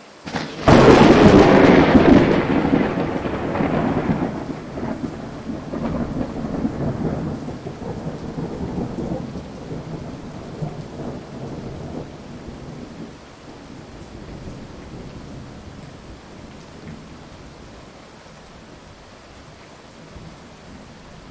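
A thunderclap over heavy rain: a sudden loud crack about half a second in, then a long rolling rumble that slowly fades over some fifteen seconds, leaving the steady hiss of rain.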